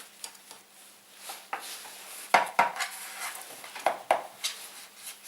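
Sharp knocks and clicks of a portable dual air compressor's hard metal and plastic parts being handled and set down, several in a row, the loudest from about two seconds in.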